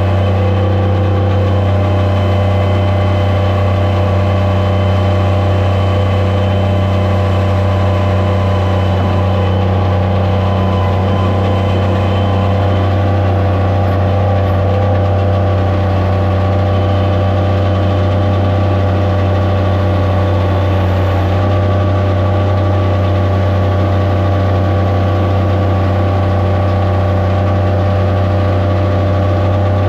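Skid steer loader's engine running steadily at an even speed: a loud, constant low hum with a stack of steady higher tones above it and no change in pitch or loudness.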